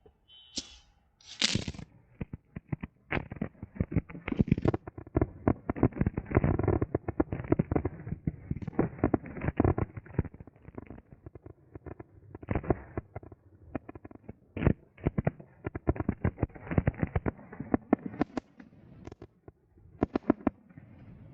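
A rapid barrage of fireworks going off: many sharp bangs and cracks in quick succession, packed most densely through the middle and thinning out near the end.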